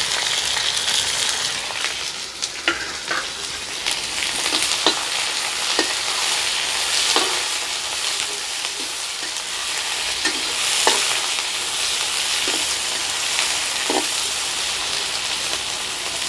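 Sliced onions sizzling in hot oil in a kadhai, with the spoon scraping and knocking against the pan now and then as they are stirred.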